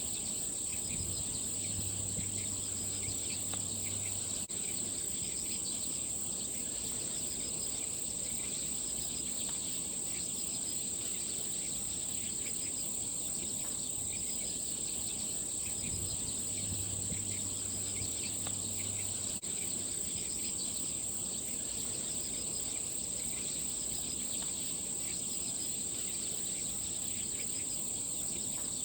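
A steady, unbroken high-pitched chorus of insects trilling, with fainter chirps beneath it. A low hum comes in twice, for about three seconds each time.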